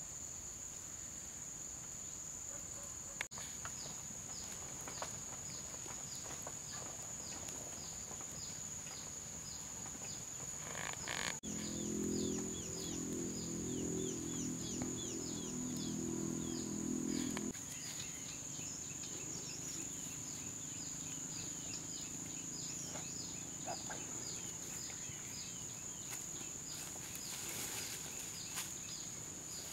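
Outdoor insect chorus: a steady high-pitched drone with a quick series of short, repeated chirps over it. A low hum joins for several seconds past the middle.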